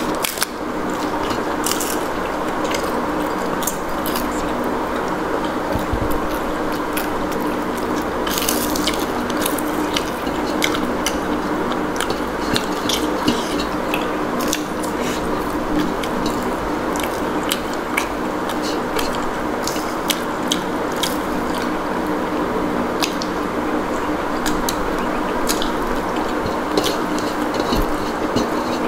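Eating sounds: a person chewing a meal of rice and chicken curry, with many short, sharp mouth clicks scattered throughout, over a steady hum.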